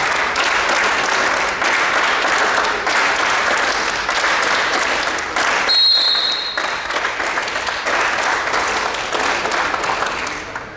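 Applause: many people clapping densely and continuously, briefly breaking off about six seconds in under a short high-pitched tone, then fading out at the very end.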